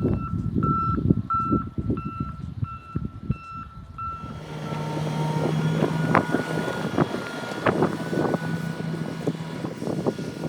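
A vehicle's reversing alarm beeping steadily, about one and a half beeps a second, stopping about four seconds in, after which a steady low engine hum carries on. Wind buffets the microphone throughout.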